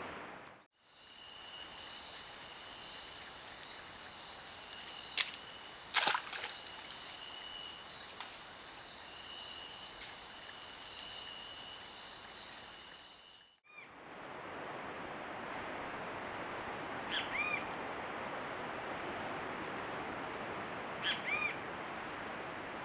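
Night insect chorus: a steady high trill with a second, lower trill coming and going, broken by two sharp clicks. It then gives way to a daytime background hiss, with a bird giving two short rising-and-falling calls about four seconds apart.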